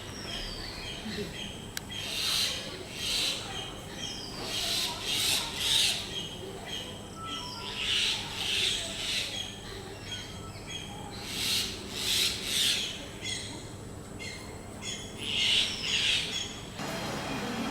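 Common myna calling: bursts of harsh, rasping calls about a second long, roughly every three seconds, with a few short falling whistles between them.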